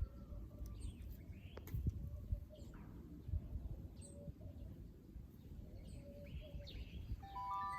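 Birds chirping in short calls over a low rumble. Near the end a brief cluster of steady tones sounds together.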